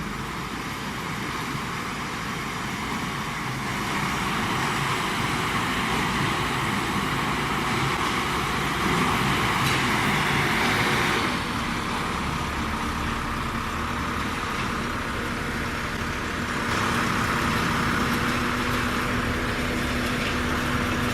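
Self-loading concrete mixer's engine running as the machine drives through mud. It gets louder about four seconds in, eases off about halfway through, and picks up again later.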